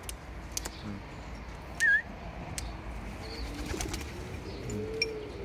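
Racing pigeons cooing, with low rising-and-falling coos in the second half, and a few short clicks and wing flaps. A short, loud, wavering high chirp about two seconds in is the loudest sound.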